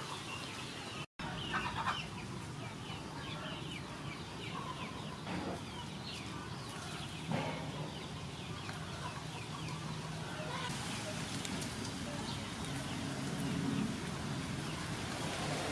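Chickens clucking in the yard, with small birds chirping. In the last few seconds leaves rustle as basil sprigs are picked by hand.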